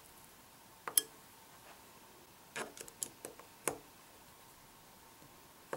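Scattered light metallic clicks and taps as a hex key is fitted into and worked between the ring cap screws of a LaRue LT150 scope mount while they are being tightened. The loudest click comes about a second in, then a cluster near the middle, and single ones later.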